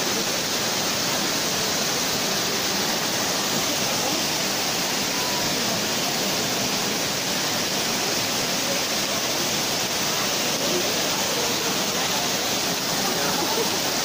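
Waterfall pouring down basalt columns and splashing onto the rocks below: a steady rush of falling water.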